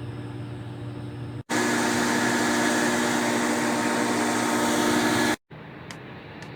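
Heavy mining machinery running. A low steady hum gives way, at a hard cut, to a loud steady mechanical drone with a constant whine that lasts about four seconds. It then cuts back to a quieter hum with a few clicks.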